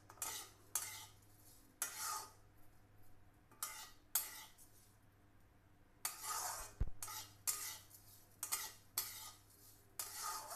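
Spatula scraping and stirring thin vermicelli around a metal kadhai in irregular strokes, with a short pause in the middle. The vermicelli is being dry-roasted in a little ghee on low flame, turning from light to dark golden.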